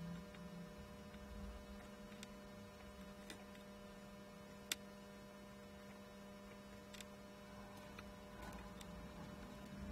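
Faint steady electrical hum with a handful of small sharp ticks, the loudest about halfway through, as a soldering iron and solder wire work the pins of an IC socket on a circuit board.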